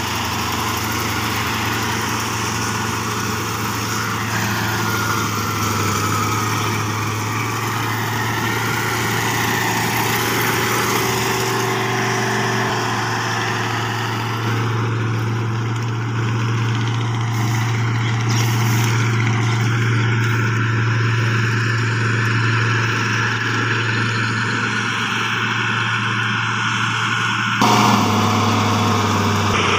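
Kubota SR55 combine harvester running steadily under load while harvesting rice: a continuous engine drone mixed with the rushing noise of its cutting and threshing machinery. The sound changes abruptly near the end.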